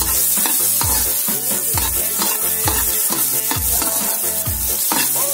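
Sliced onions sizzling in hot oil in a wok, stirred with a metal spoon that scrapes the pan. Background music with a steady beat plays over it.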